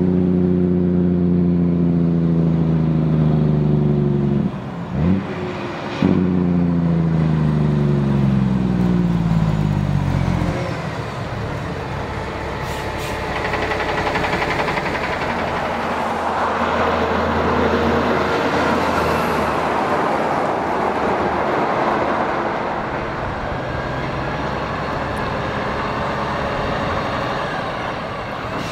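Heavy diesel road-train engines. First a strong engine note that falls steadily in pitch over several seconds, then the broad rushing of a multi-trailer road train's engine and tyres rolling past.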